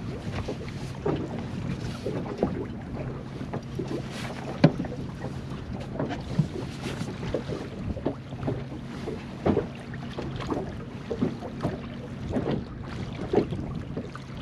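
Boat motor running steadily while trolling, with water slapping irregularly against the hull and wind buffeting the microphone.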